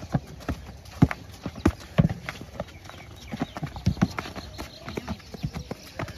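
Athletes' feet landing and pushing off on packed dirt and on cardboard boxes during a hurdle-jump drill: irregular running footfalls and landing thuds. The loudest come about one and two seconds in and again near four seconds.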